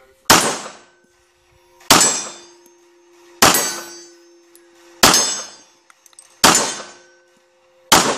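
Six pistol shots fired at a steady pace, about one and a half seconds apart, each a sharp crack that quickly dies away.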